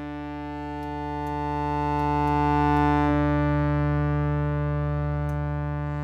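Sustained drone from Ableton's Wavetable synth, a detuned saw wavetable held as one steady pitched tone. Its band-pass and low-pass filters are being swept slowly by LFOs and envelopes, so it swells and brightens to a peak about three seconds in, then slowly fades. A few faint clicks are heard.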